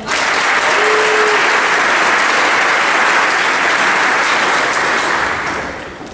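Audience clapping, steady and dense, dying away over the last second.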